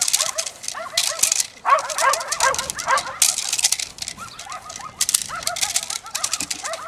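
Belgian Malinois barking and yelping in quick, high-pitched barks, several a second, at a decoy in a bite suit, with sharp rustling and scuffing mixed in.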